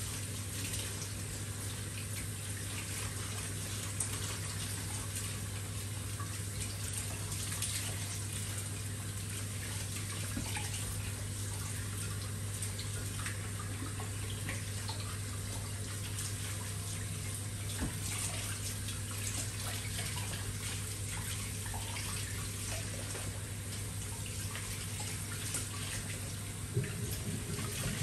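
Kitchen mixer tap running steadily into a stainless steel sink, the water splashing over a whole raw chicken as it is rinsed by hand, with a few small knocks.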